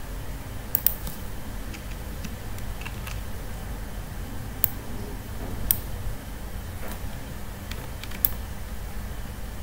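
Scattered clicks of a computer mouse and keyboard: a quick double click about a second in, then single clicks at irregular intervals, over a steady low hum.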